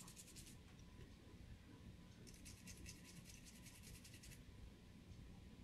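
Faint scratchy scrubbing of a toothbrush's bristles on a smartphone's circuit board, cleaning corrosion off a water-damaged connector. It comes in quick strokes, about ten a second: briefly at the start, then again for about two seconds in the middle.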